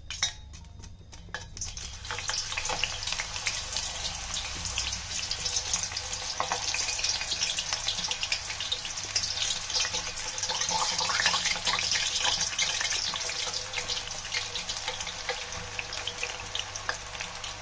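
Banana slices frying in hot oil as they drop off a steel slicer into the pan: a dense crackling sizzle that builds over the first couple of seconds and grows as more slices go in, after a few sharp clicks at the very start. The crackle comes from the water on the fresh slices hitting the hot oil.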